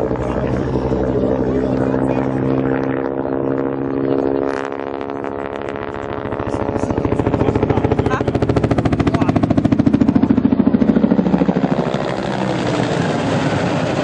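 Large-scale turbine-powered model Cobra helicopter flying, its rotor beating rapidly over the engine's steady tone. It grows louder through the middle as it passes closest, then eases off.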